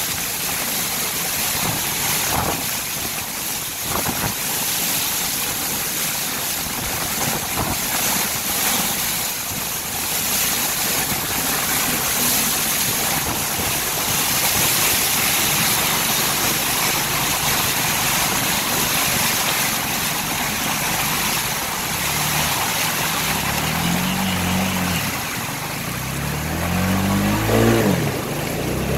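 Steady hiss of rain and water spray around a vehicle driving on a wet road. Near the end the engine comes up underneath, its pitch rising and falling several times as it revs.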